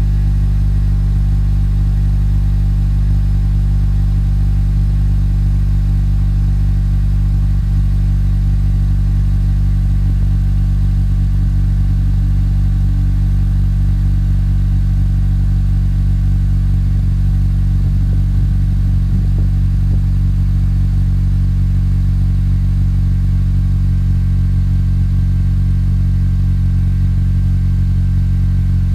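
Honda CSX Type S's K20Z3 2.0-litre four-cylinder idling steadily, heard at the tailpipe of a Yonaka 2.5-inch cat-back exhaust; an even, unchanging exhaust note with no revving.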